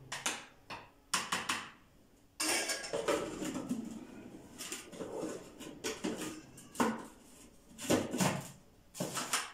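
Irregular clicks, knocks and clatter of a food processor's plastic bowl and lid being handled and fitted into place.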